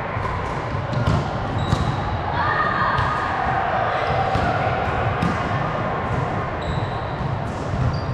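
Indoor volleyball game in a reverberant gym hall: volleyballs thudding off hands and the floor at irregular intervals, with players' voices and a few short, high sneaker squeaks over a steady low hum of the hall.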